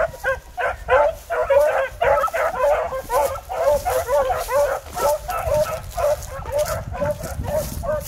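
Several rabbit hounds baying and yelping on a rabbit's trail: a fast, unbroken chorus of short, high, overlapping calls.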